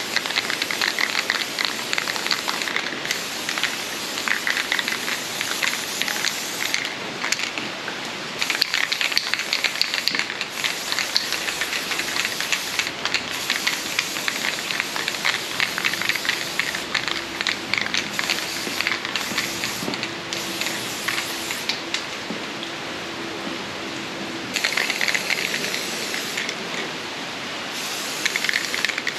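Electric arc welding: a continuous crackling sizzle from the arc, in runs of several seconds broken by short pauses between welds.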